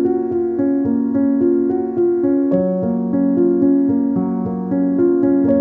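Background piano music: a melody of notes changing about every half second over held chords, with a lower bass note coming in about halfway through.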